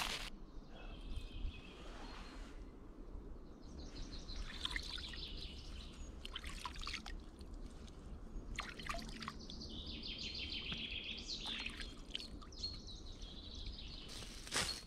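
A hand swishing and splashing in shallow pond water, with trickles and drips, while songbirds sing.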